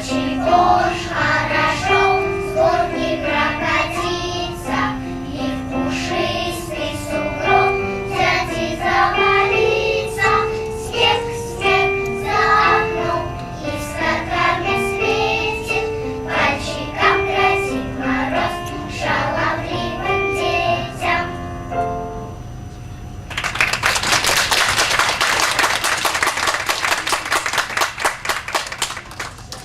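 Children's choir singing a song with instrumental accompaniment. The song ends a little over twenty seconds in, and the audience applauds.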